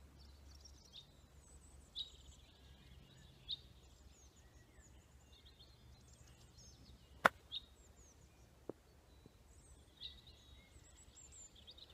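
A 56-degree wedge striking a golf ball off bare ground: one sharp click about seven seconds in, followed by a fainter tick about a second and a half later. Faint bird chirps sound on and off.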